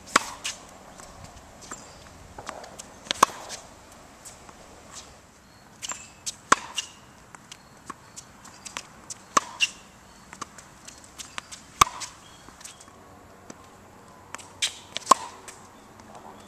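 Tennis racket striking the ball in a groundstroke rally: a sharp pop about every three seconds, with fainter ball bounces and shoe taps on the hard court between.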